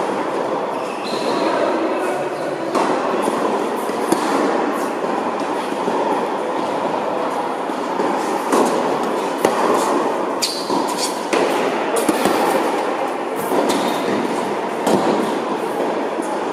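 Tennis balls being struck and bouncing in a large reverberant indoor tennis hall: sharp knocks, irregularly spaced and coming more often in the second half, over a steady loud rushing noise.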